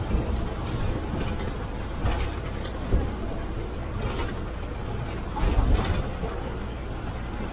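TNSTC diesel bus running on the road, heard from the driver's cabin: a steady low engine and road rumble, with sharp knocks and rattles from the body several times, the loudest about three seconds in and just before six seconds.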